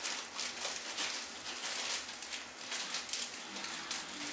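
Quick, irregular light clicks and scrapes of small metal parts as the stuck needle seat is worked out of a 33mm Mikuni carburetor body by hand.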